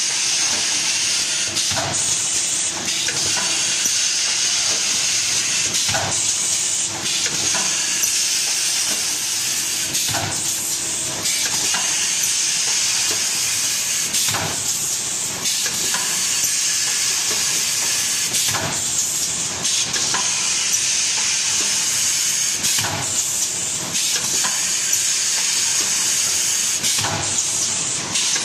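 Automatic rigid-box case-making machine running: a steady hiss, with a short knock repeating about every four seconds as each cycle presses a board onto its paper lining.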